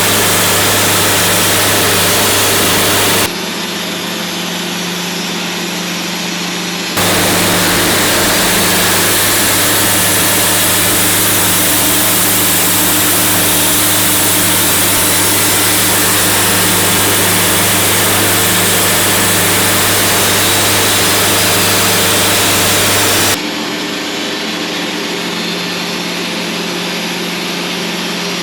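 A small engine runs steadily throughout. Twice a loud, even hiss cuts in and out abruptly, once for about three seconds and then for about sixteen seconds.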